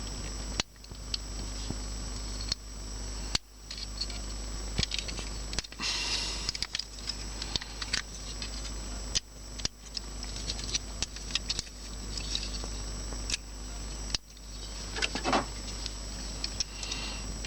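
Hard plastic toy parts clicking and rattling as a Transformers figure is handled and its pieces are fitted together. The clicks are irregular, with a short rustle about six seconds in and a brief scrape near the end.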